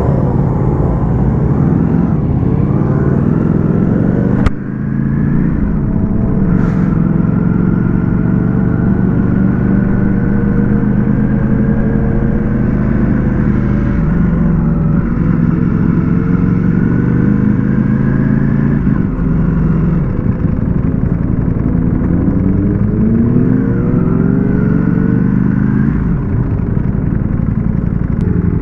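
Ducati Panigale V4S's V4 engine running under way, holding steady for long stretches and rising in pitch as it accelerates near the start and again near the end. There is one sharp click about four and a half seconds in.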